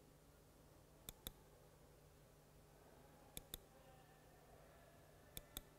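Soft sharp clicks in pairs, three pairs about two seconds apart, over near silence with a faint low hum.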